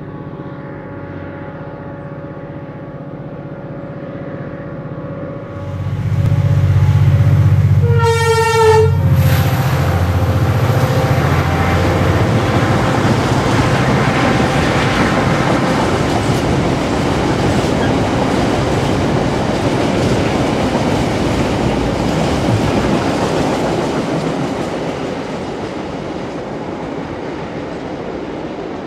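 GM 071 class diesel locomotive with its EMD V12 two-stroke engine working as it approaches and passes close, getting much louder about six seconds in. It sounds a short horn blast about eight seconds in. Then a long rake of empty steel flat wagons rolls past with wheel clatter, fading near the end.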